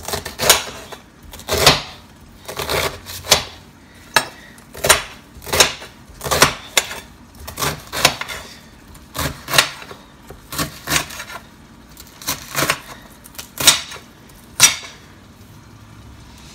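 Kitchen knife chopping through a cabbage head, the blade knocking on the bottom of a glass baking dish with each cut. The cuts come as a steady series of sharp knocks, about eighteen of them, and stop near the end.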